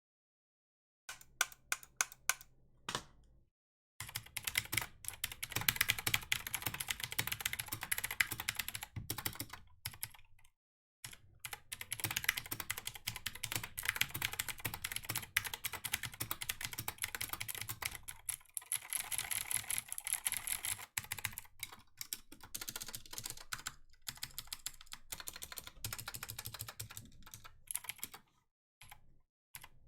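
Computer keyboard being typed on fast: a dense stream of key clicks, broken by a few short pauses.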